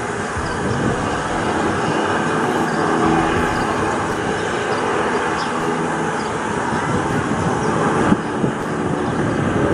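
Embraer VC-2 (Embraer 190) jet on final approach, its two turbofan engines giving a steady rushing hum that grows slightly louder as it nears. A brief thump about eight seconds in.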